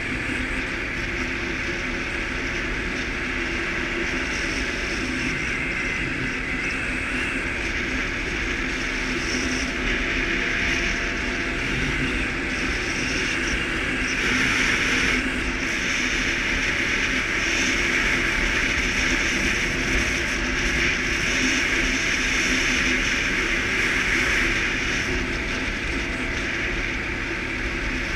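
Suzuki KingQuad ATV engine running steadily while riding, the level swelling slightly now and then.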